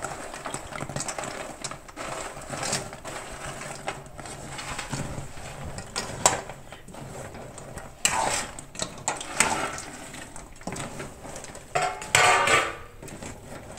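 A spatula and a steel plate scraping and clattering against a metal kadhai as fried sev is tipped into jaggery syrup and stirred, with louder knocks about eight and twelve seconds in.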